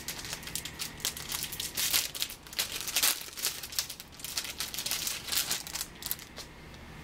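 Packaging crinkling and rustling as it is handled and unwrapped, in quick irregular crackles that die down near the end.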